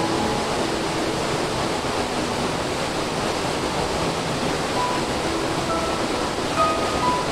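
Steady rushing of a shallow river running over rocks, with faint background music notes over it.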